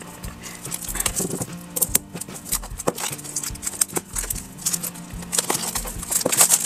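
Plastic shrink-wrap on a paperback book crinkling and tearing as it is slit with a knife and peeled off, a run of crackles and rustles. Background music with a steady low beat underneath.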